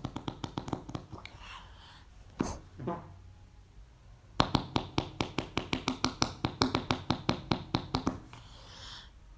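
Hands making fart noises: two quick runs of sharp, slightly squelchy taps, about six or seven a second, with a short pause between them. A brief swishing noise comes near the end.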